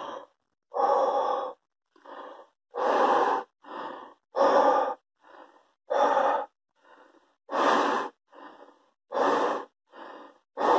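A man breathing out hard through a hand cupped over his mouth, blowing up into goggles to fog them. About six heavy breaths out, one every second and a half or so, with quieter breaths in between them.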